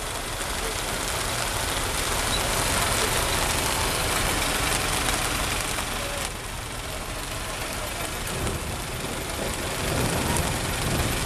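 Farm tractor engines running as tractors drive past on a wet street, over the steady hiss of heavy rain. The sound dips briefly about six seconds in.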